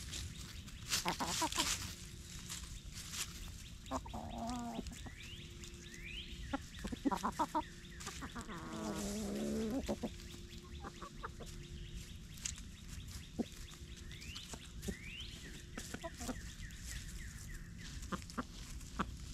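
Chickens clucking in several short bouts, with scratchy rustling and clicks from foraging in dry leaves and compost. Now and then there are short rising chirps.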